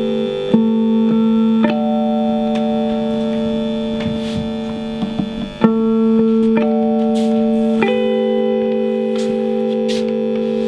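Electric guitar played through effects, slow held chords ringing on and changing every few seconds.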